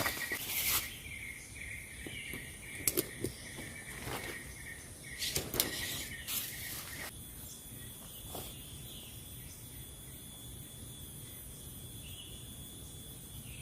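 Outdoor nature ambience of insects: a steady high trill that stops about halfway through, followed by a higher, thinner steady buzz. A few short sharp clicks or snaps are heard in the first half.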